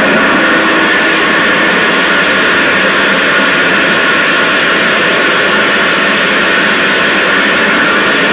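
Loud, harsh amplified noise from a homemade spring instrument with an electric pickup, driven hard: a dense, steady wall of hiss with a few held ringing feedback tones running through it.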